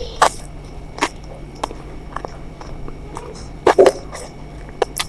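Close-up eating sounds: a person chewing, with short sharp mouth clicks and smacks at irregular intervals and a quick cluster of them near the end.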